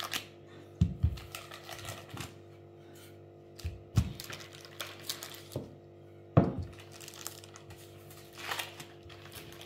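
Wooden rolling pin rolled over dough on baking paper on a wooden table: the paper rustles and crinkles, with a few irregular knocks as the pin and hands bump the table.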